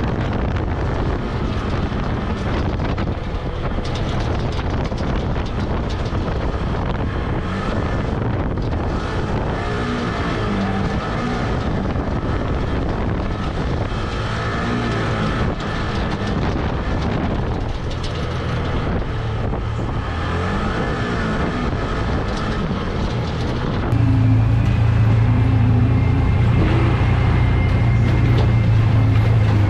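Side-by-side UTV engine running as the machine drives along the trail, a steady mechanical drone with a noisy, rattling layer over it. Near the end it gets louder, settling into a strong, even hum.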